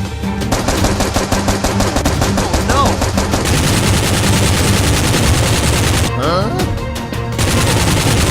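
Rapid automatic gunfire sound effects, shot after shot in quick bursts, over action background music.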